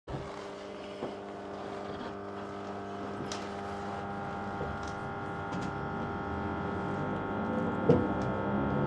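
Electric multiple-unit train pulling away from a station, heard from inside the carriage: a steady hum of motor tones that grows louder, with the whine starting to climb in pitch near the end as it gathers speed. A single sharp knock sounds about eight seconds in.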